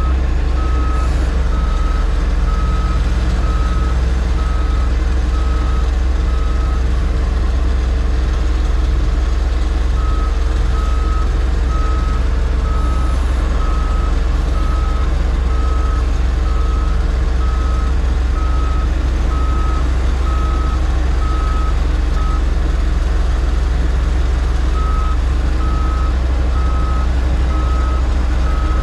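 Diesel engine of a piece of heavy earthmoving equipment running steadily, with its backup alarm beeping at an even pace, stopping for a few seconds twice as the machine stops reversing.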